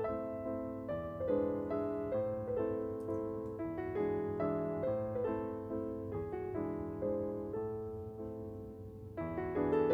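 Background piano music: a melody of separate notes, each fading after it is struck.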